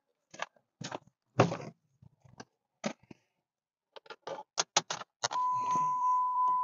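Keys jangling with a run of short clicks and knocks. About five seconds in, a steady electronic warning tone starts up in the Jeep Wrangler and keeps sounding, typical of the key-in or door-open chime.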